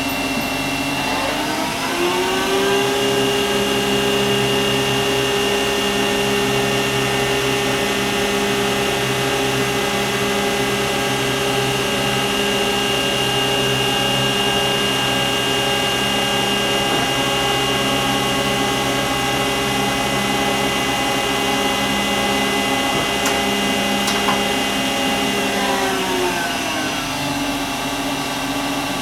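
Hwacheon Mega 95/3000 CNC lathe spindle drive running through a looped test program: its whine rises in pitch as the spindle speeds up about a second in, holds steady, then falls as it slows near the end.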